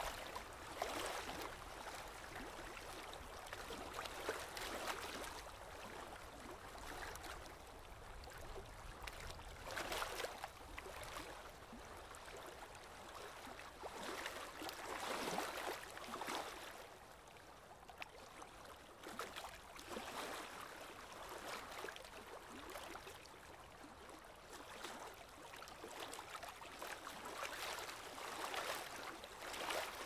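Lake water lapping gently at a gravel shore, the splashing swelling and fading in irregular surges a few seconds apart.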